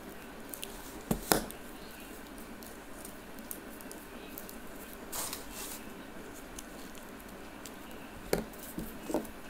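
Paper being handled and rolled by hand: a soft rustle and a few sharp clicks and taps, the loudest two a little over a second in and another just past eight seconds.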